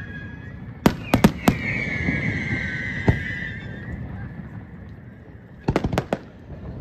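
Aerial fireworks going off: a quick run of sharp bangs in the first second and a half, one more bang near the middle, and a tight cluster of bangs near the end. Over the first half, whistling effects give a high whistle that sags slightly in pitch.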